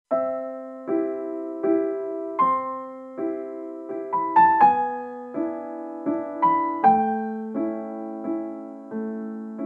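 Gentle electric piano music, with soft chords struck about once every three-quarters of a second, each ringing on and fading.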